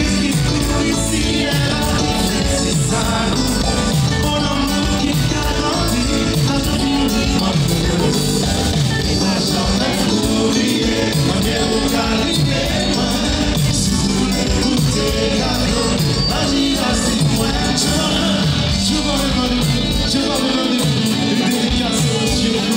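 A live band playing a song with a lead singer, heard from among the audience. The bass drops out about twenty seconds in.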